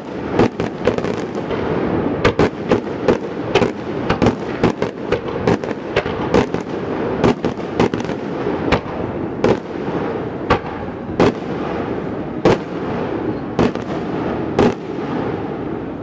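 Fireworks going off: sharp bangs about once or twice a second over a continuous crackling din, the bangs coming further apart near the end.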